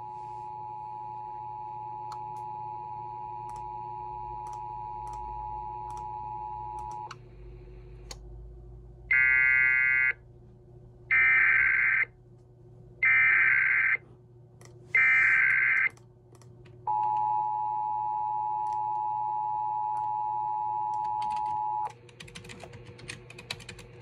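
Emergency Alert System tones from a Sage EAS ENDEC. The two-tone attention signal holds steady for about seven seconds. Then come four one-second bursts of buzzy data tones two seconds apart, the SAME alert header codes. After them the attention signal sounds again for about five seconds.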